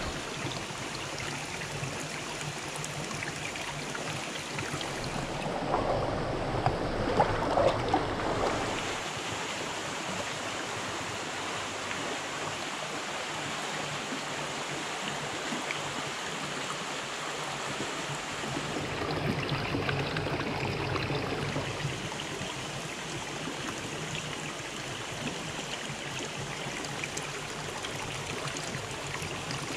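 Steady rush of running water: hot-spring water pouring from a pipe into an open-air rock pool. It swells a little, with a few sharper peaks, about six to eight seconds in.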